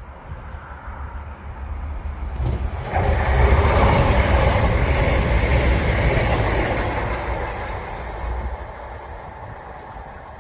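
A train passing through a station: a low rumble and rushing noise that builds, swells sharply about three seconds in, then fades away.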